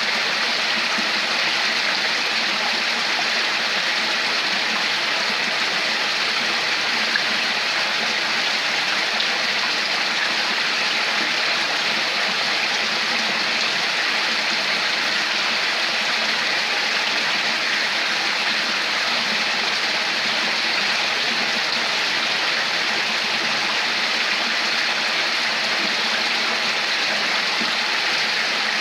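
Running water flowing steadily, an even rushing and gurgling of a stream without a break.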